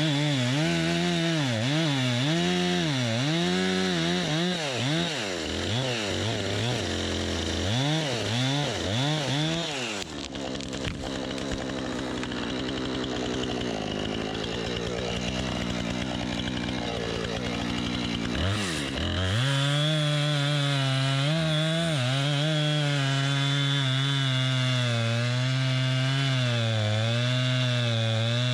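Two-stroke chainsaw revving up and down repeatedly. It drops to a lower, rougher sound for several seconds, then runs at a steady high speed from about two-thirds of the way through.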